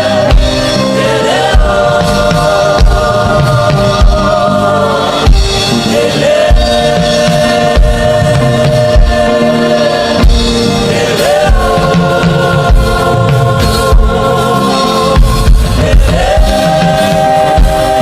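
Gospel worship music: a choir singing long, held notes that slide from one pitch to the next, over a band with a steady low drum beat.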